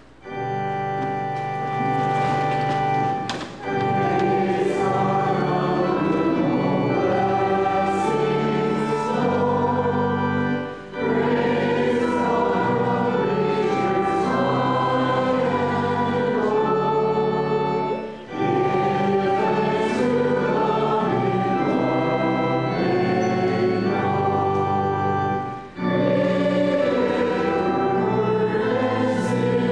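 Congregation singing a hymn together with keyboard accompaniment, in phrases broken by short pauses about every seven or eight seconds.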